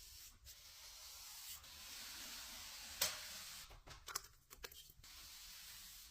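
Steady hiss, with a sharp click about three seconds in and a quick cluster of clicks and knocks about a second later.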